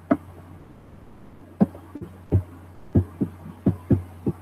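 A run of about eight short, soft, low thumps at an uneven pace, some close together, over a steady low hum.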